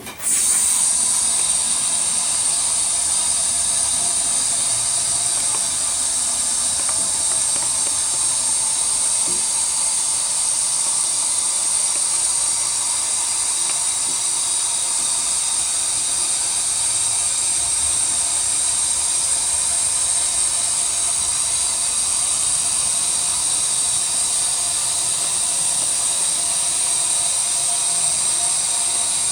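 A loud, steady hiss with a high whine, switched on abruptly and running without change.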